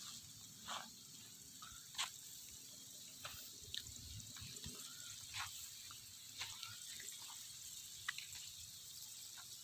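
Faint outdoor ambience: a steady high hiss with scattered short plinks or chirps every second or so, and a few soft low thumps.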